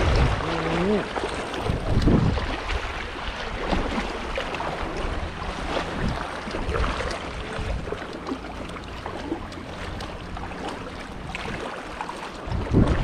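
Sea water sloshing and splashing around a horse wading through the shallows, with wind buffeting the microphone.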